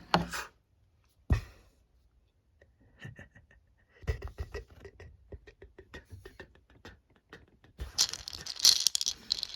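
A couple of sharp knocks, then a run of quick light ticks, then dry leaves crackling and rustling loudly from about eight seconds in.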